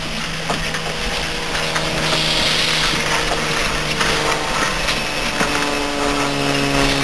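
Steam locomotive No. 17 approaching and passing close by, running tender-first with its coaches: a steady hum that drops slightly in pitch near the end as it passes, a spell of steam hiss in the middle, and light clanks and clicks from the running gear and rails.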